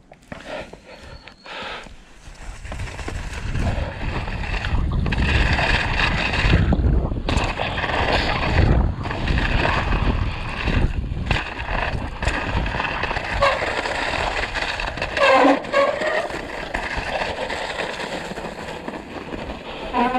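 Canyon Sender downhill mountain bike ridden down a snowy trail: tyres rolling through snow with a heavy rumble and hiss, the bike rattling over bumps with occasional sharp knocks. The noise picks up about two seconds in as the bike gets moving.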